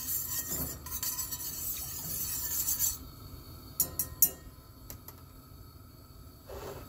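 Wire whisk stirring a thin cornstarch-and-water mixture in a stainless steel saucepan: a steady scraping swish for about three seconds that stops suddenly, followed about a second later by a few quick metallic clinks of the whisk against the pan.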